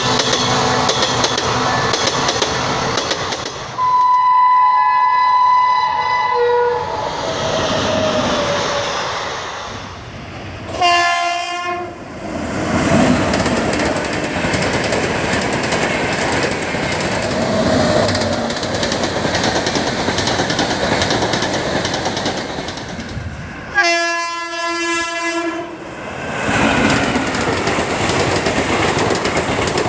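Indian Railways train running over the track, a steady rumble with wheel clatter, its horn sounding three times: a blast of about three seconds near the start, a short one about eleven seconds in, and another of about two seconds near twenty-four seconds.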